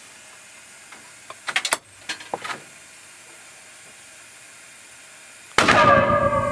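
A few sharp metallic clacks as a rifle is worked and tapped in its bench fixture, then one sudden loud proof-firing gunshot from the enclosed proof station near the end, ringing on as it dies away.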